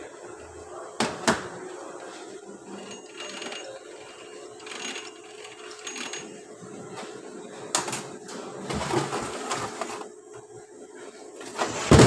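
Metal transmission parts of a Toyota RAV4 CVT being handled: light metallic clicks and clinks, with two sharp clicks about a second in. Near the end comes a loud knock as the aluminium case half is swung into place.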